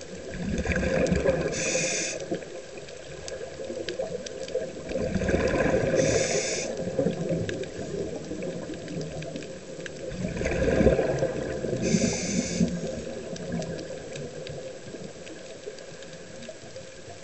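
A scuba diver breathing through a regulator underwater, three breaths about five seconds apart: each a short hiss of air through the regulator and a burst of bubbling exhaust bubbles.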